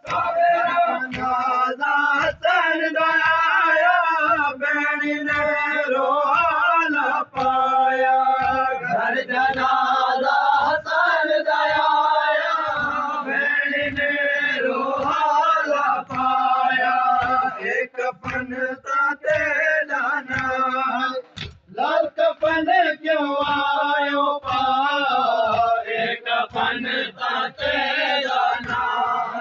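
Male voices chanting a noha, a Shia mourning lament, over steady chest-beating (matam) at about two thuds a second. The chant breaks off briefly a little past the middle, then resumes.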